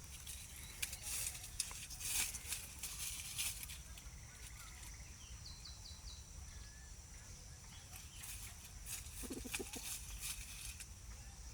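Poultry-yard ambience: a steady high insect-like whine, scattered clicks and rustles, a few small bird chirps, and a short low call of a few pulses about nine seconds in.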